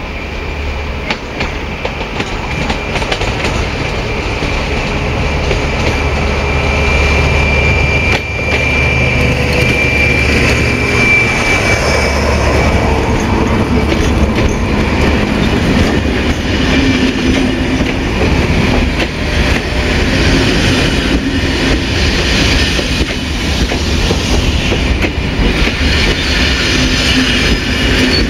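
A locomotive-hauled Corail Intercités passenger train approaches and passes close by, its rumble swelling over the first several seconds, with a thin high whine about a third of the way through. The coaches' wheels then clatter over the rail joints as the train goes past.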